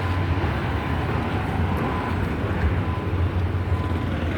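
Steady low rumble of background noise with a faint, thin steady tone, and no distinct events.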